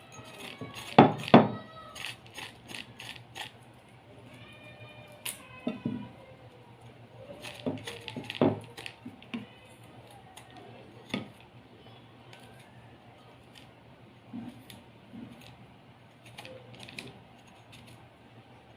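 Ginger root being scraped to remove its skin: irregular short scrapes and clicks, loudest about a second in, with a few brief high squeaks.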